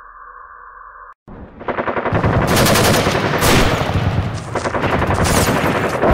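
Machine-gun fire: long, loud, rapid bursts of automatic gunfire that start suddenly about a second in, after a steady high drone cuts off.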